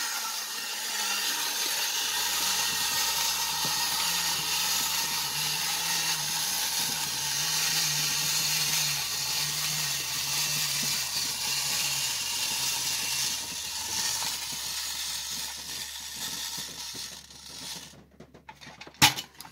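Clockwork spring motor of a tin wind-up robot toy running, a steady mechanical whir as the toy rolls forward on its wheels. It tails off and stops as the spring runs down, near the end.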